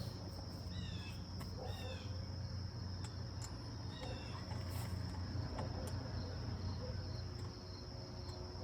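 Crickets trilling steadily at a high pitch, over a low steady hum, with a few short falling chirps about one, two and four seconds in.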